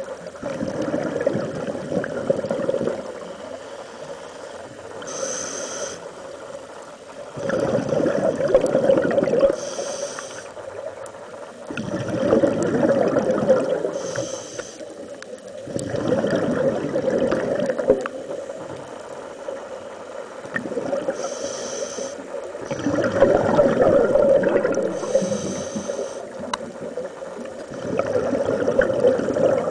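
Scuba breathing through a regulator underwater, in a slow repeating cycle: a short hiss as a breath is drawn, then a longer, louder burst of exhaled bubbles, about every five to six seconds.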